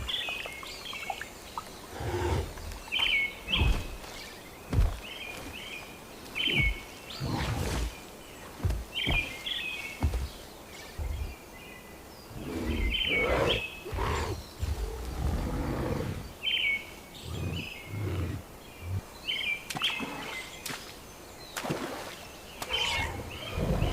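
Forest birds calling in short repeated chirps every second or two, over scattered deep rumbles and sharp snaps.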